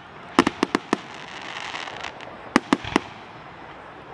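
Aerial fireworks shells bursting in sharp bangs: a quick run of about five within the first second, then three more around three seconds in.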